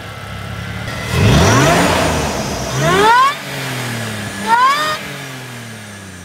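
Supercharged 4.0-litre V6 (1GR-FE) of a 2008 Toyota FJ Cruiser with a TRD supercharger, just started and blipped three times, about 1, 3 and 4.5 seconds in, with a whine rising on each blip. The revs then fall back toward idle.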